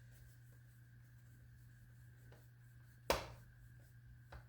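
Faint steady hum with one sharp click about three seconds in and a smaller click near the end, like a small part being set down or handled.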